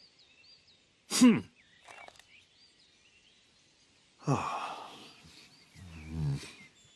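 A cartoon character's wordless vocal sounds: a short falling sigh about a second in, a longer breathy sigh about four seconds in, and a low grumbling grunt near the end. Faint chirping birdsong sits underneath.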